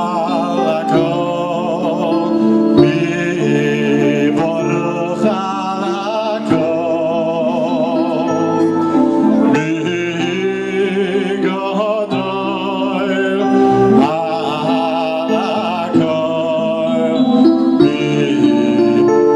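A male vocalist singing a held melody with vibrato into a microphone through the PA, over sustained chords from the band.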